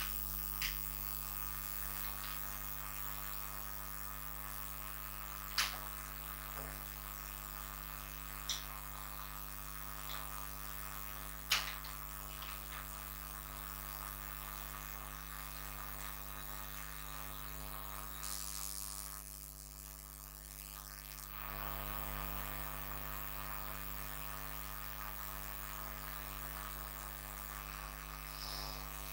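Steady electrical mains hum, with a few short clicks in the first dozen seconds. It goes briefly softer about twenty seconds in.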